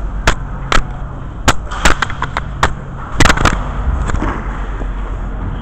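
A quick, irregular run of about ten sharp clacks and knocks over three seconds, the loudest pair about three seconds in, over a steady low hum.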